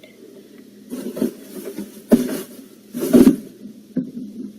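Things being picked up and moved about while tidying a room: four rustling, clattering handling noises about a second apart, the loudest a little past the middle.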